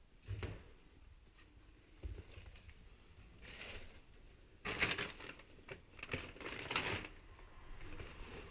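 Footsteps through a floor littered with paper and plastic bags: a few soft thuds, then louder crinkling and crunching of paper and plastic underfoot from about halfway in.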